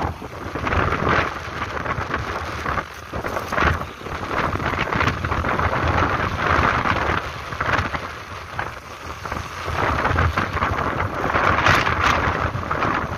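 Wind rushing and buffeting over the microphone of a motorcycle at highway speed, a loud rush that keeps surging and easing, over a low road and engine rumble.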